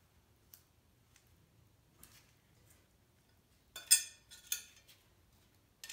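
Metal clinks and scrapes of a sharpened steel lawnmower blade and its mounting hardware being fitted onto the mower's blade spindle: a few faint ticks, then two sharper metallic clinks about four and four and a half seconds in.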